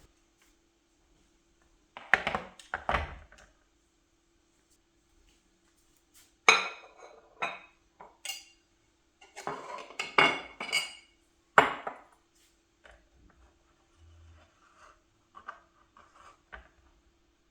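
Kitchenware being handled: dishes and utensils knocking and clinking against each other and the counter in three short clusters, with fainter small knocks near the end.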